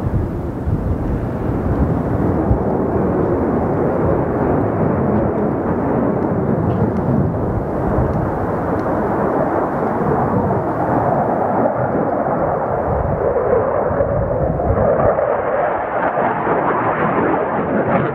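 Jet engine noise of a JF-17 Thunder's single Klimov RD-93 turbofan as the fighter flies a display pass. It is a steady, heavy rumble that turns brighter and harsher from about fifteen seconds in, as the jet pulls up into a vertical climb.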